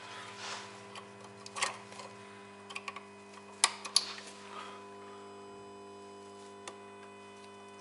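Hands working needle probes and wiring at a car's sensor connector: scattered sharp clicks and small ticks, the loudest about a second and a half in and a pair near four seconds, over a steady electrical hum.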